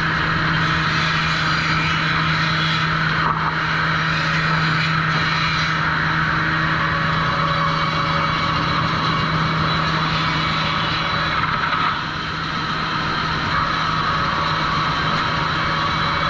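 Sawmill trim-saw line machinery running steadily: a constant low motor hum under a continuous rushing mechanical noise, dipping briefly in loudness about three-quarters of the way through.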